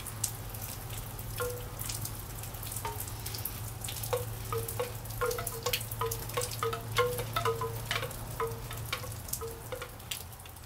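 Kalimba notes ringing over steady rain pattering: a few scattered notes in the first seconds, then a run of short notes, mostly on the same pitch, a couple each second from about four seconds in until near the end.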